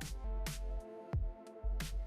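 Background electronic music with a steady beat: kick drum and bright snare hits over sustained synth chords.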